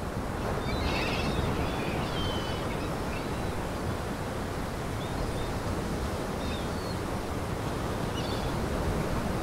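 Steady rushing outdoor ambience of wind and lake water, with faint high bird chirps about a second in and a few more later.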